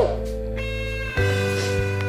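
Music with steady held chords over a bass line, moving to a new chord about a second in.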